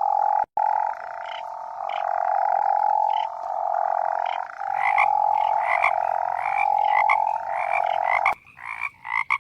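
Frog calls: a steady pulsed trill at one pitch, broken into repeated stretches of about a second each, which stops near the end and gives way to a few short chirps.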